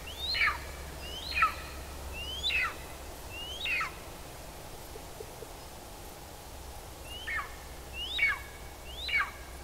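Young golden eagle calling: a series of short, sharp yelps, each sweeping briefly up and then falling steeply in pitch. There are four about a second apart, a pause of about three seconds, then three more.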